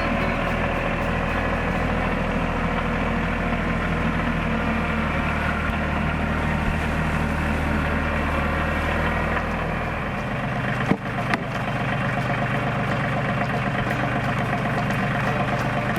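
An engine running steadily at a low, even speed. About eleven seconds in there is a sharp click, and after it the engine's low note changes slightly.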